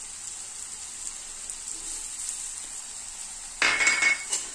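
Sliced onions and oil sizzling steadily in a metal pan as ground masala paste is put into the hot oil in the centre. About three and a half seconds in there is a louder clatter with a brief ringing clink.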